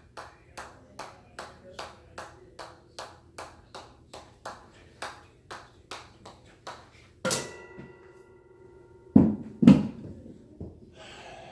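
A ball bounced again and again on the face of a hammer, light taps about two and a half a second. About seven seconds in, the taps give way to one louder clang with a metallic ring. About two seconds later come two heavy thumps half a second apart.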